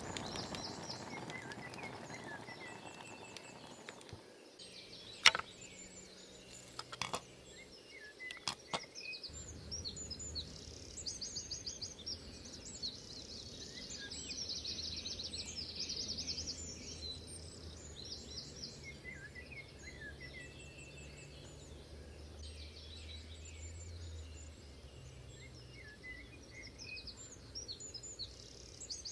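Several wild birds singing in a forest: many repeated high trills and short chirps. A few sharp clicks or knocks come about five to nine seconds in, the first being the loudest sound, and a low steady hum sits underneath through the middle.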